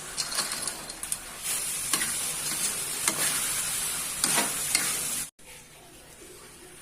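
Tempe sizzling as it is stir-fried in a pan, with repeated scraping strokes of the stirring. The sound cuts off suddenly about five seconds in, leaving a quieter hiss.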